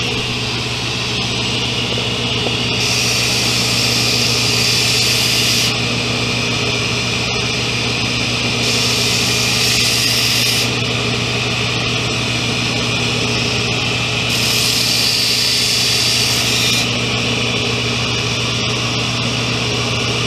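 Belt grinder running with a steady electric-motor hum while a carbon steel knife blade is sharpened on its abrasive belt: three grinding passes, each a few seconds long, add a higher hiss about 3, 9 and 14 seconds in. The sharpening raises a burr on the edge.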